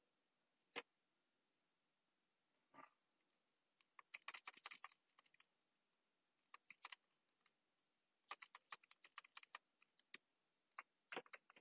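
Quiet computer keyboard typing: a single key click about a second in, then several bursts of rapid keystrokes separated by short pauses. The keys are mostly pressed over and over to insert spaces and push text along a line.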